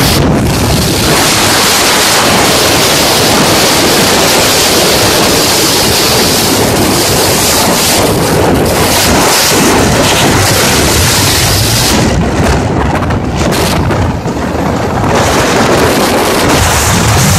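Loud, steady wind noise battering the microphone on a moving motorcycle. The high hiss drops away for a few seconds about two-thirds of the way through, then returns.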